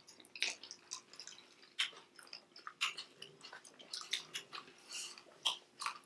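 Close-miked chewing and mouth noises: a string of irregular, quiet wet clicks and small crunches.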